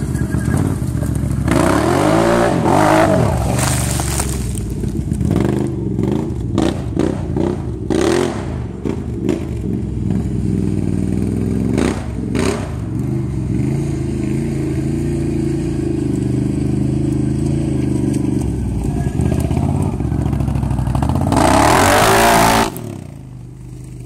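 2013 Can-Am Outlander 800R Max's V-twin engine through an HMF slip-on exhaust, being ridden and revved again and again, its pitch rising and falling with the throttle. Near the end it is loudest, then drops off sharply.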